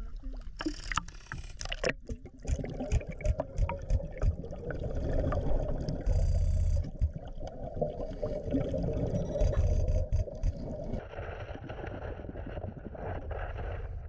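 Water splashing and sloshing around a scuba diver at the surface. About two seconds in, the sound turns to muffled underwater noise as the diver submerges, broken twice by loud bursts of the diver's exhaled bubbles.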